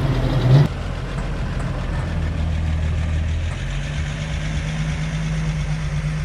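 Engine of an early-1950s Chevrolet station wagon running at low speed as the car rolls slowly past, a steady low drone. Under a second in, a louder engine sound from the shot before cuts off abruptly.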